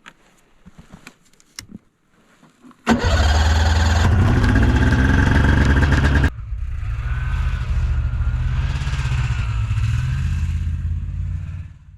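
A Ski-Doo snowmobile engine starting about three seconds in, after a few light clicks and handling noises. It runs loud and fast for about three seconds, then settles to a lower, steady run.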